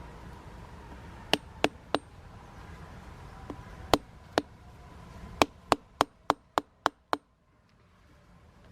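A wooden baton striking the spine of a cheap dollar-store multitool's knife blade to drive it into a block of wood. There are three sharp knocks, a pause, two more, then a quick run of seven at about three a second.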